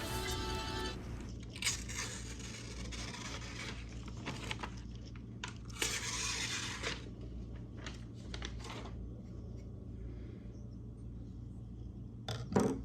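Knife blade slicing through paper in several separate cuts of about a second each, a paper-cutting test of a cheap paring knife's sharpness; two sharp clicks near the end.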